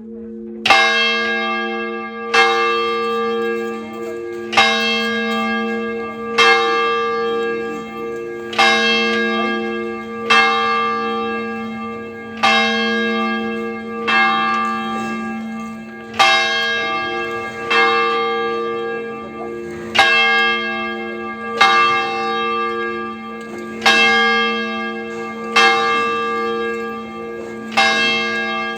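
A single church bell tolling steadily, struck about once every two seconds. Each stroke rings out and fades over a low hum that carries on between strokes.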